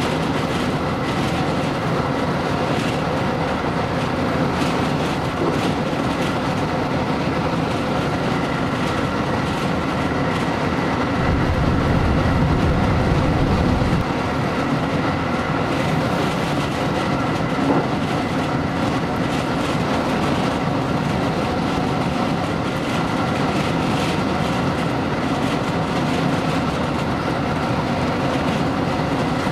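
JR new rapid electric train running at speed, heard from inside the front cab: a steady rumble of wheels on rails with a faint steady whine above it. A heavier low rumble swells for about three seconds near the middle, and there is a single click a little after.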